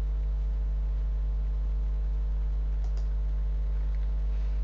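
A steady low electrical hum, with a faint click or two from a computer mouse or keyboard about three seconds in and near the end.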